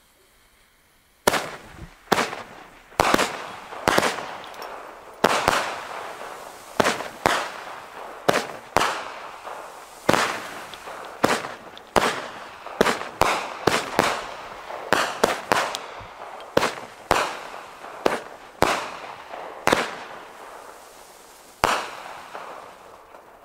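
Schuurmans Power Block fireworks cake firing: more than two dozen sharp bangs at uneven intervals of roughly half a second to a second, each trailing off in a short echo, starting about a second in and stopping with a last shot near the end.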